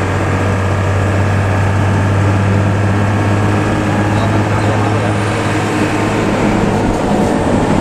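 Intercity bus engine running steadily under way, a low, even drone with the 'ngorok' (snoring) exhaust note, heard from on board the bus.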